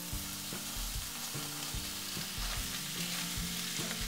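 Oil sizzling in a pan where spinach, peanuts and spices are frying, as cooked tur dal is added and stirred in with light scrapes of the spoon.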